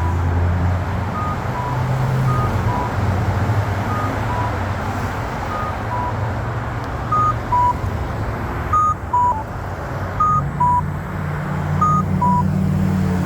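Accessible pedestrian signal push buttons beeping: short tones at two slightly different pitches alternate, repeating about once a second, over the low hum of traffic. The beeps grow louder about seven seconds in.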